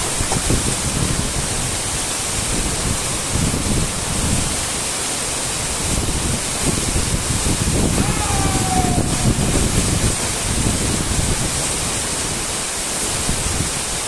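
Tall waterfall plunging onto rocks: a loud, steady rush of falling water, with gusts of wind buffeting the microphone.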